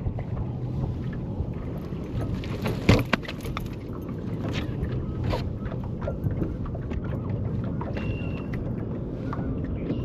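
Low, steady rumble of wind and water around a bass fishing boat, with scattered light clicks and one sharp knock about three seconds in. A brief high tone sounds about two seconds before the end.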